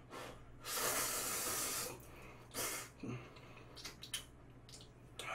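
A person slurping Buldak spicy stir-fried noodles: one long slurp lasting about a second, then a shorter slurp, followed by a few small mouth clicks of chewing.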